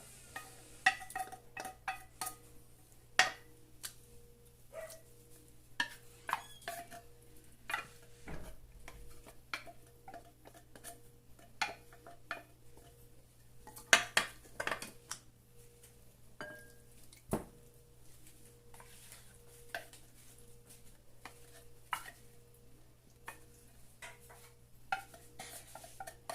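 Irregular clinks, taps and scrapes of metal tuna cans and kitchen utensils being handled, with a few louder knocks among them.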